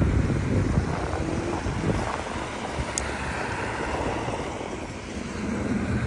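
Road traffic rumbling past, with wind buffeting the microphone. The rumble is loudest at the start and eases off towards the end.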